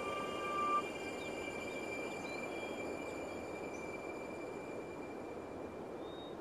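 Steady outdoor ambience with faint high bird chirps, while the last held synth notes of the instrumental die away; the final high note fades out about two thirds of the way through.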